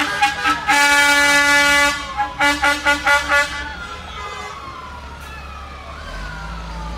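Vehicle horns honking in a string of short toots with one longer blast, then a siren winding down in slow falling wails. A passing truck's engine rumbles low near the end.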